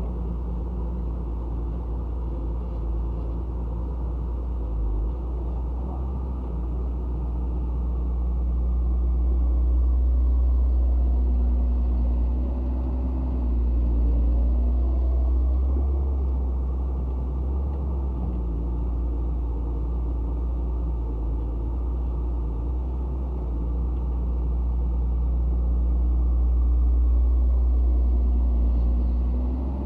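Excavator's diesel engine running steadily with a deep note, its pitch and loudness swelling and easing every few seconds as it takes hydraulic load.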